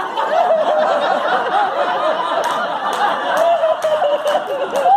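Audience laughing at a punchline: many people's laughs overlapping.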